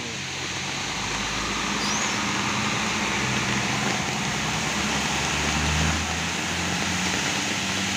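Intercity coach's engine pulling away and driving past in heavy rain: a low engine hum that swells about five seconds in as the bus passes, then eases, over the steady hiss of pouring rain on a wet road.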